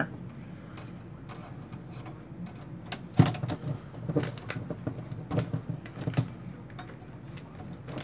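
Screwdriver turning the spring-loaded retained screws at the back of a SPARCstation 20's metal chassis: a scattering of light clicks and knocks, the sharpest a little after three seconds in, over a steady low hum.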